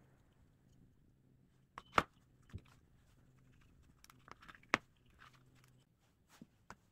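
Scattered light clicks and knocks from handling a small wooden planer body and hand tools while a finish is dabbed on. The two loudest come about two seconds in and just before five seconds, with smaller taps near the end, over a faint low hum that stops near six seconds.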